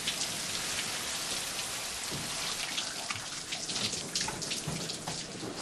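Shower running: a steady hiss of water spray with spattering drops.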